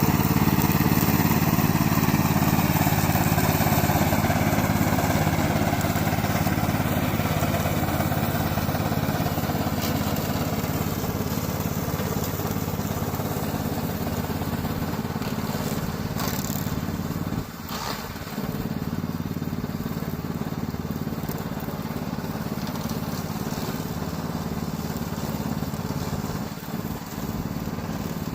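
Gasoline engine of a remote-control lawn mower running steadily, slowly growing quieter, with a brief dip in level about two thirds of the way through.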